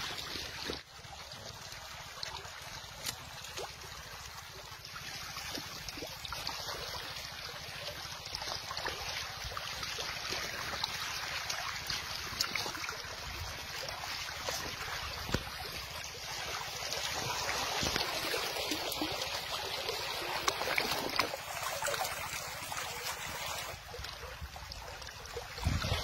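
Steady rush of shallow flowing water, with a few small clicks scattered through it.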